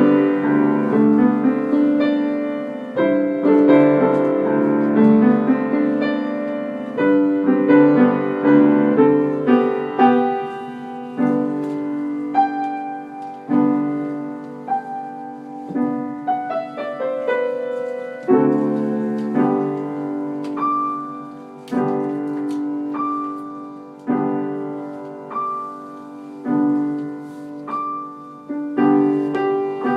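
Solo piano music: chords and melody notes struck and left to fade, the phrases slowing and spreading out in the second half.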